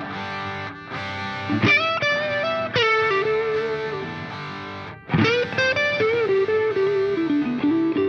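Background music: a guitar melody played with sliding, bent notes.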